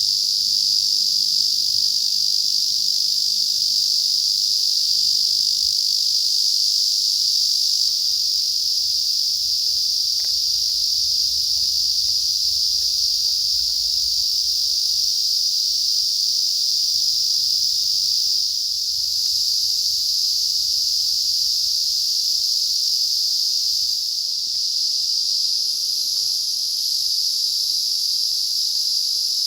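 A steady, high-pitched insect chorus that never lets up.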